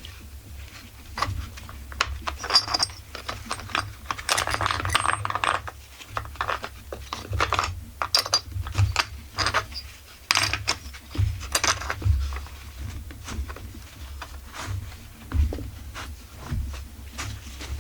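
Irregular small metallic clicks and taps as screws, a screwdriver and small chainsaw parts are handled and fitted, with a short stretch of rustling about four seconds in.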